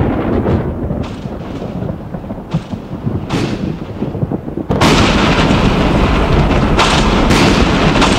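Thunder from a thunderstorm: a rolling rumble with a few sharp crackles that eases off, then a sudden loud thunderclap a little past halfway that keeps rumbling.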